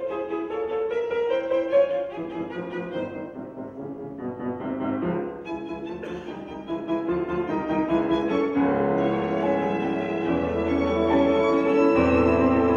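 Live instrumental music: a melody of pitched, sustained notes that grows fuller and louder as low held notes come in about eight and a half seconds in.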